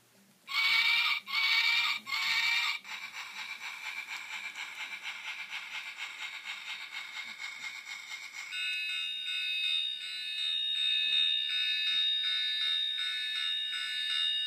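Three hoots of a train whistle in quick succession, then a steady, rhythmic chugging; about two-thirds of the way through, a higher held chord that pulses comes in over the chugging.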